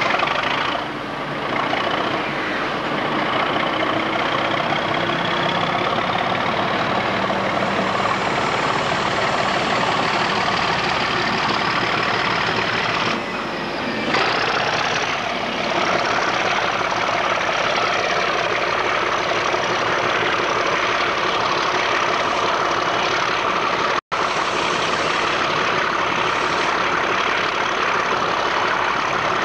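Class 37 diesel locomotive 37404 pulling its train away, its English Electric V12 diesel running steadily and heavily, with a high whistle rising slowly in pitch over the first dozen seconds, typical of the class's turbocharger. The sound cuts out for an instant about 24 seconds in.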